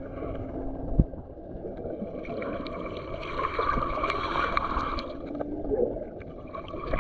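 Muffled sloshing and gurgling of seawater around a camera dipping below the surface, with a single thump about a second in.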